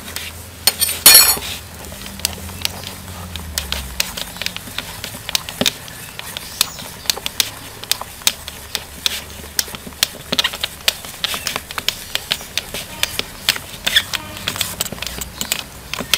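A plastic spatula stirring thick brownie batter in a plastic bowl: irregular scraping and clicking against the bowl's sides as flour and cocoa are worked in, with one loud knock about a second in.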